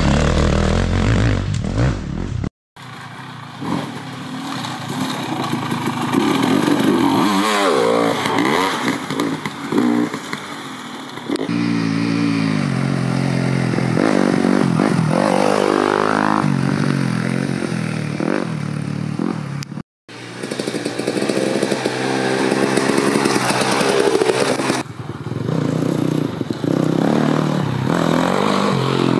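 Dirt bike engines revving hard, pitch climbing and dropping as the riders work the throttle and shift. Several separate clips are spliced together, with abrupt cuts about two and a half seconds in and again near twenty seconds.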